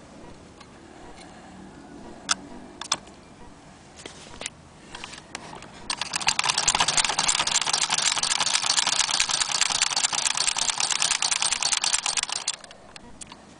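1890s Victorian sewing machine running and stitching through cloth: a fast, even clatter of the needle and mechanism that starts about six seconds in and stops abruptly about a second before the end. Before that come a few separate sharp clicks.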